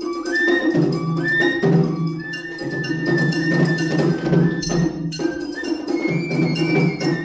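Japanese matsuri bayashi ensemble playing: a shinobue bamboo-flute melody of held, stepping notes over quick, dense taiko drum strokes.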